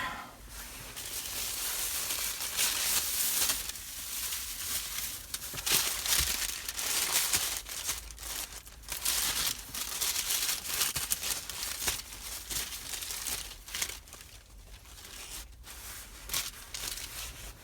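Paper sandwich wrapper crinkling and rustling as it is handled and unfolded, in irregular spells with a few sharper crackles.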